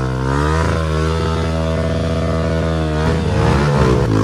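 Motorcycle engine running, its note dipping and rising about half a second in and again a little after three seconds.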